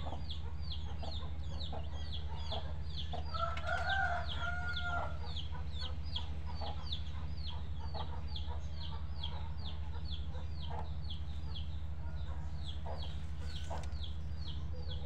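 Chickens: a steady run of short, high, falling peeps, about three a second, and a rooster crowing once about three seconds in, over a steady low hum.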